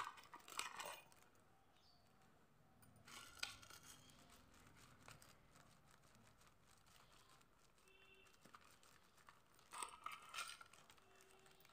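Near silence broken by three short, faint crinkles of a plastic powder packet being handled and tipped into a bowl: one at the start, one about three seconds in and one near the end.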